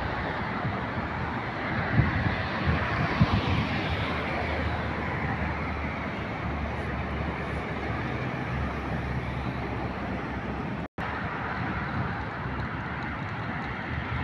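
Steady road traffic noise from passing cars, with wind on the phone's microphone and a few brief bumps early on. The sound cuts out for an instant about eleven seconds in.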